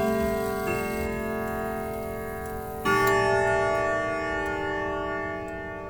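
Grandfather clock chime rods being struck: a note about 0.7 s in, then a louder, deeper note just under three seconds in that rings on and slowly fades, with the clock faintly ticking near the end.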